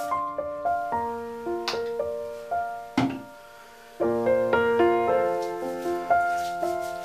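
Background solo piano music, separate notes struck and left to fade, thinning out around three seconds in and then coming back fuller. Two brief sharp noises cut through it, one just under two seconds in and a louder one at about three seconds.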